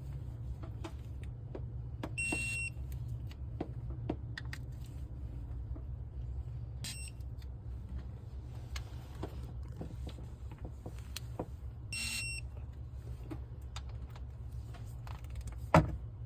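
Chevrolet 5.3 L V8 running with a steady low rumble and irregular ticking, misfiring from a stuck AFM lifter. Three short electronic beeps sound, the middle one faint, and a sharp click comes near the end.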